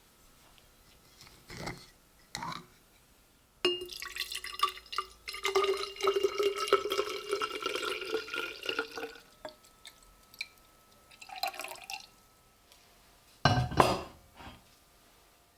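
Glass clinking and knocking with small liquid sounds; a sharp knock about four seconds in leaves a ringing tone that lasts about five seconds, and a louder knock comes near the end.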